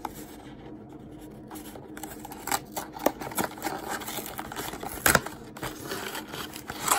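A cardboard box of hockey-card packs being opened by hand, with scratching and scraping of cardboard and wrapper. A sharper crack or tear comes about five seconds in.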